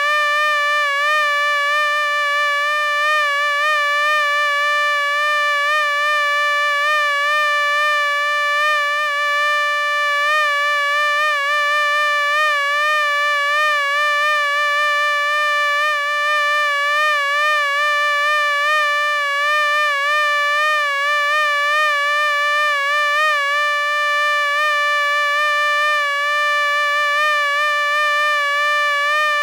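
Mosquito flight whine: a steady, high buzzing tone whose pitch wavers slightly as it hovers, never stopping.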